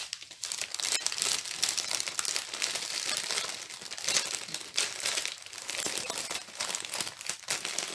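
Small plastic bags of diamond-painting drills crinkling and rustling as they are handled and packed back into a larger plastic bag, an irregular crackle with many small clicks.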